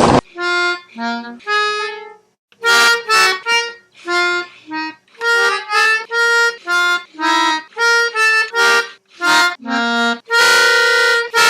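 Instrumental music: a melody of short, separate reedy notes at changing pitches, with a louder, fuller held chord about ten seconds in.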